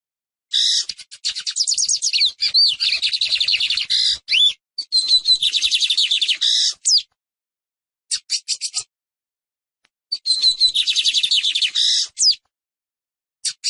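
Lined seedeater (Sporophila lineola) singing: three high, rapid trilled phrases of two to four seconds each, with a few sliding whistled notes, separated by short pauses and brief bursts of notes.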